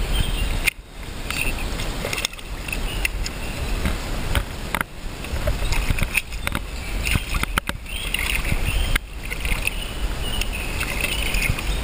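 A hooked barbel splashing and thrashing in shallow river water as it is drawn in on the line, over the steady rush of the river and a low rumble.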